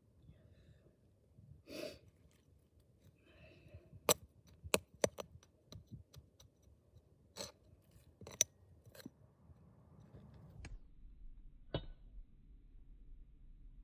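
Metal hand trowel digging and scraping in compost in the holes of concrete cinder blocks, with a soft rustle of soil early on and then a string of sharp clicks, about seven, as the blade knocks against the block.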